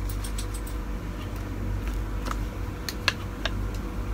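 Light clicks and taps of the hard plastic parts of a manual multi-chopper being handled, two slightly louder ones about three seconds in, over a steady low hum.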